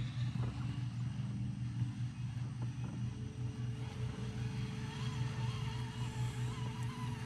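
A boat motor running with a steady low hum. A fainter, higher steady tone joins about three seconds in.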